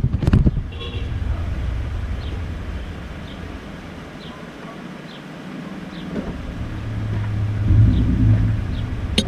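Low rumble of a passing vehicle that dies away, then builds again toward the end, with a few faint high chirps and a sharp click at the very end.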